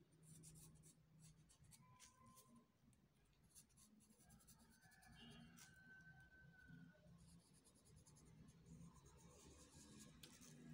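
Faint scratching of a pencil sketching on paper, in many short strokes, over a low steady hum.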